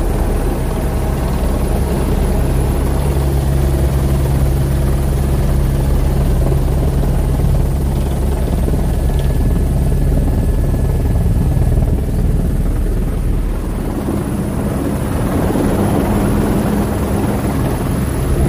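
Police helicopter running overhead, its rotor beating steadily; the sound of the drone changes slightly about fourteen seconds in.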